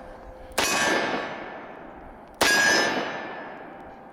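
Taurus 605 five-shot snub-nose revolver firing .357 Magnum, two shots a little under two seconds apart. Each sharp report dies away over more than a second.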